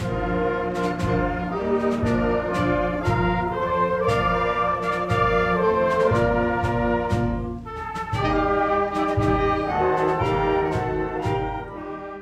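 Brass music with trumpets and trombones over a steady drum beat. It dips briefly about eight seconds in, then picks up again and fades out near the end.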